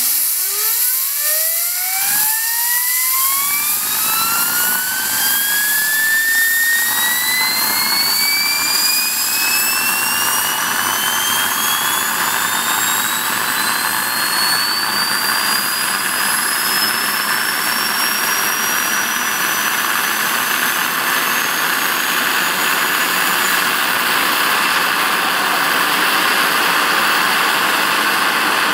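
Homemade turbocharger jet engine running loud: a steady roar with a whine that climbs steeply over the first few seconds, then keeps rising slowly as the turbo spools up.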